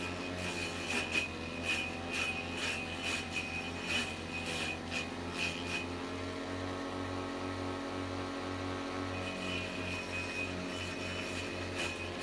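Homemade vegetable chopper, an electric water-pump motor spinning a grass-cutter blade, running steadily with irregular sharp cracks as the blade chops vegetables. The chopping stops for a few seconds in the middle while the motor keeps running, then resumes near the end.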